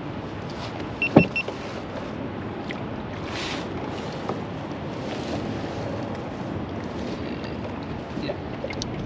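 Steady wind and water noise around the kayaks. About a second in there is a sharp knock, with three quick high electronic beeps right beside it.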